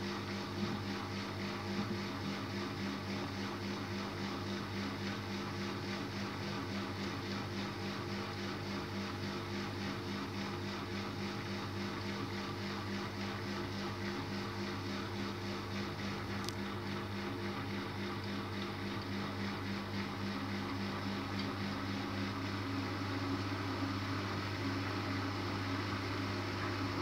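Miele W 2597 front-loading washing machine running with a steady motor hum as the drum turns the wet cotton load, building up to an intermediate spin on a 75°C cottons wash. It grows a little louder near the end.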